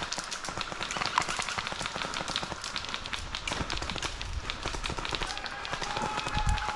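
Footsteps moving through forest undergrowth, with many small irregular snaps and clicks.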